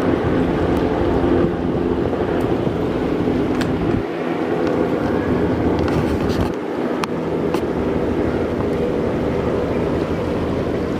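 An engine running steadily with a low hum, and wind blowing across the microphone.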